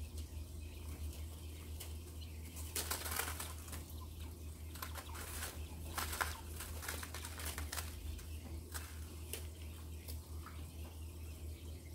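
White button quails scratching and pecking in loose husk bedding: irregular short rustles and scuffs, busiest in the middle, over a low steady hum.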